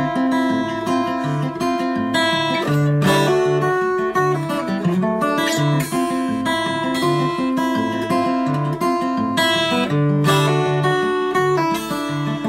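Music: an acoustic guitar playing a song's instrumental intro, repeating plucked chords in a steady rhythm.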